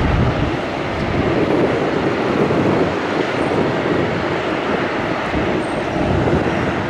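Large aircraft's engines running loud and steady.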